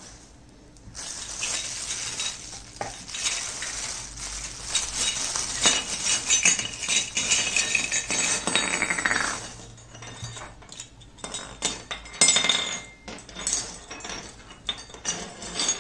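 Clear plastic wrapping crinkling as it is pulled off a set of miniature brass tea cups and their wire stand. Later, small brass cups click and clink against each other and against the wire stand as they are handled.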